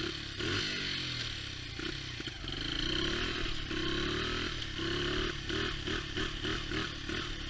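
Honda XR80R dirt bike's small single-cylinder four-stroke engine revving under way, its pitch rising and falling, then pulsing quickly about four times a second in the second half. The owner says the bike is only kind of running, and suspects low compression or the spark plug.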